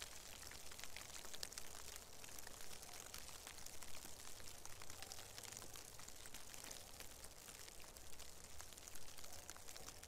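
Light, steady patter of falling wet snow on dry leaves and undergrowth: many small ticks over a soft hiss, with a faint low rumble underneath.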